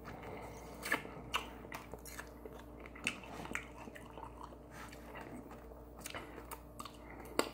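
A person chewing and biting into crispy fried chicken wings, with scattered short crunches and mouth clicks.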